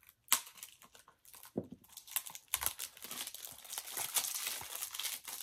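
Crinkling plastic packaging as a Blu-ray is handled. A sharp click comes near the start, then dense crackling that grows louder from about two seconds in.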